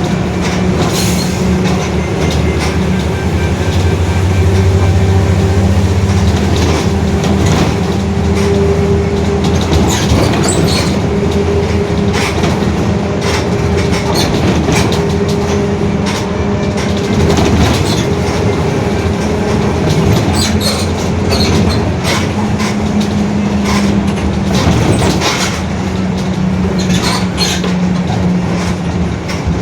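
Rear differential of a Mercedes-Benz OF-1721 bus droning very loudly while underway: a steady low drone with a fainter, higher tone above it, over road rumble and frequent rattles and knocks.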